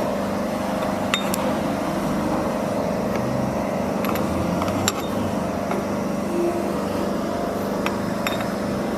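Steady machine hum from workshop equipment, with a few sharp clicks about 1, 5 and 8 seconds in.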